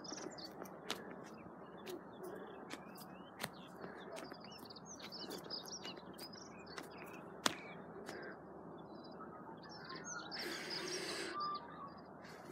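Small birds chirping and twittering over a steady outdoor hiss, with scattered sharp clicks. About ten seconds in, a brief rush of noise lasting over a second is the loudest thing.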